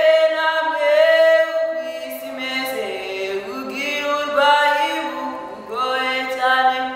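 Vocal group singing a cappella in harmony, with several voices holding long notes together and moving to a new chord every second or two.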